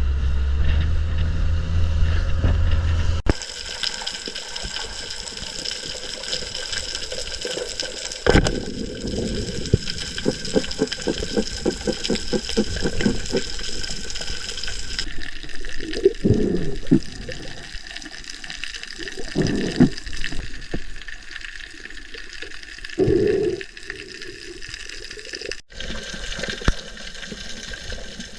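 A low engine hum that cuts off suddenly about three seconds in, then water sloshing and gurgling with irregular surges.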